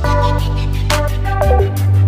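Background music with a deep bass line and a steady beat.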